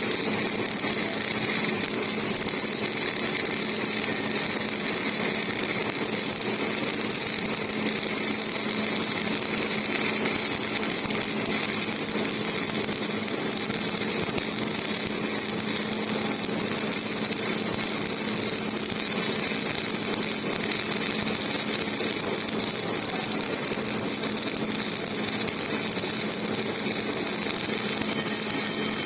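Electric arc welding: the arc's steady crackling sizzle with a constant hum underneath.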